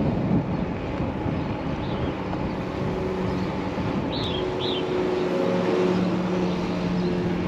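Wind buffeting the microphone while riding a Razor SX500 electric dirt bike, over a steady motor hum. Two short high chirps about four seconds in.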